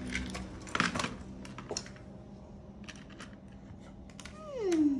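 Light, scattered clicks and clatter of small plastic Lego pieces being handled and poked with a stick in a small plastic tub. Near the end a voice slides down in pitch, the loudest sound.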